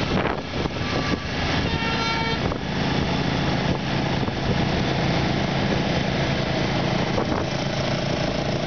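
Motorcycle engine of a homemade four-wheeled leaning trike running steadily on the move, with a short higher tone about two seconds in.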